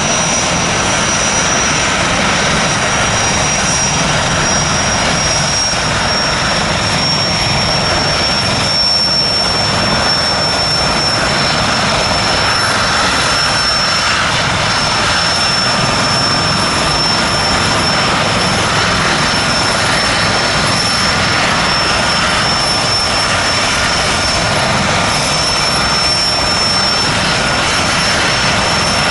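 Airbus H160 helicopter running on the ground with its rotors turning, a steady loud rotor and engine noise with a thin high turbine whine held over it.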